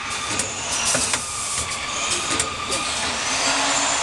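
Automatic coffee-capsule filling and sealing machine running: a steady mechanical clatter and hiss from the chain conveyor and air-driven stations, broken by a few sharp metallic clicks.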